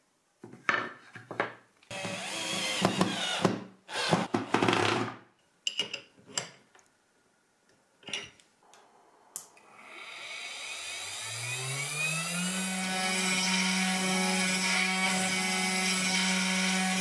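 Knocks and scraping of wood being handled, then a few short clicks as the spindle's collet is tightened with wrenches. From about ten seconds in, the CNC router's spindle motor spins up, its whine rising over about three seconds and then holding steady while the end mill cuts into the wood.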